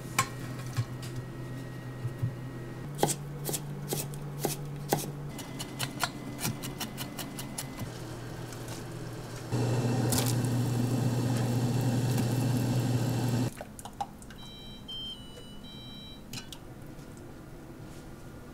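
Broccoli florets and a wooden cutting board knocking against a stainless steel bowl, a string of light clicks and taps. About nine seconds in comes a louder stretch of a pot of water at a rolling boil as broccoli is blanched in it, lasting about four seconds and stopping abruptly.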